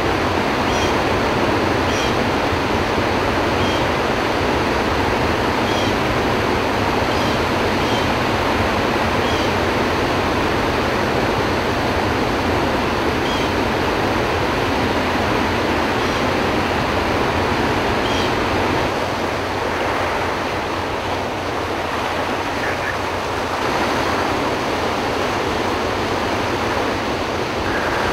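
Floodwater pouring through the open spillway gates of Kaw Dam, a loud, steady rush of water from the release of about 44,000 cubic feet per second.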